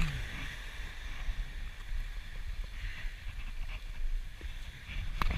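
Small waves breaking and washing up a gravel beach, with wind buffeting the microphone as a low rumble. A couple of sharp knocks near the end.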